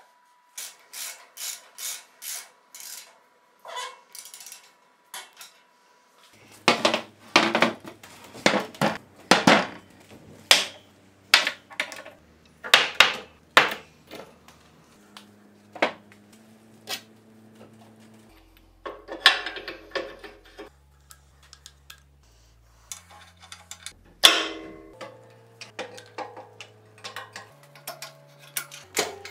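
Metal-on-metal handwork: a ratchet wrench clicking in short even strokes as a bolt is tightened, then loud irregular clinks and knocks of steel bushings and hydraulic cylinders being handled on a steel workbench and fitted to a steel frame.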